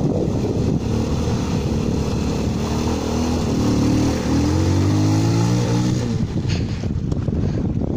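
Italika DM 150 motorcycle's single-cylinder four-stroke engine revving as it pushes through shallow water, with water splashing. The engine note climbs over the first few seconds and fades after about six seconds as the bike pulls away.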